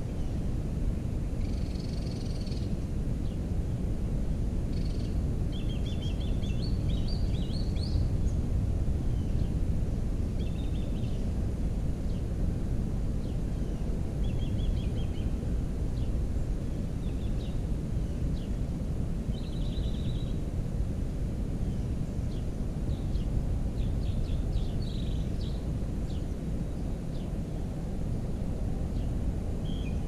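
Steady low outdoor rumble with small birds chirping and trilling now and then throughout.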